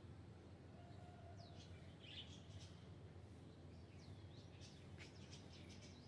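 Faint chirps of small birds, several short high calls, some sweeping down or up in pitch, scattered over a low steady background hum.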